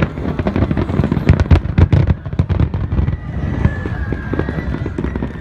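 Fireworks bursting in quick succession: a dense volley of cracks and bangs in the first half, thinning to scattered bangs near the end.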